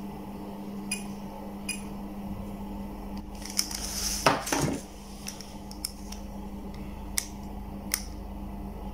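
Small sharp metallic clicks and taps as multimeter test-probe tips are pressed against a transistor's pins, with a brief rustle of handling about four seconds in, over a steady low hum.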